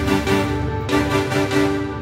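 Background music: a cheerful tune of quick, evenly spaced short notes.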